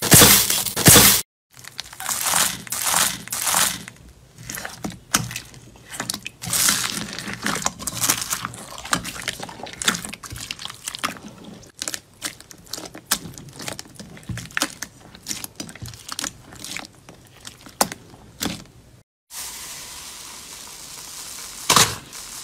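A hand presses and squishes crunchy slime, clear slime packed with purple chunks, in a bowl. It gives a dense, uneven run of crackles, pops and crunches. Near the end it goes quieter, with a soft hiss and a few sharp squishy pokes.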